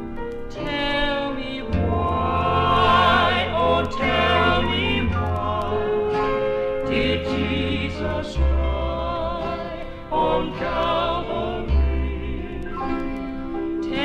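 Southern gospel vocal group singing in harmony with vibrato over instrumental accompaniment with a bass line, a 1968 stereo LP recording. A long note is held a little past halfway through.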